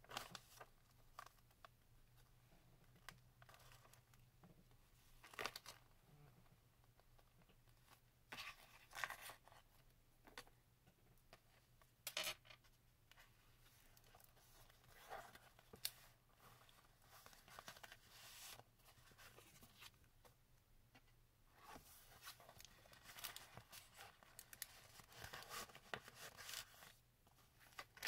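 Quiet rustling and flapping of paper and vellum pages of a handmade junk journal being turned and handled, in short irregular bursts. A faint steady low hum runs underneath.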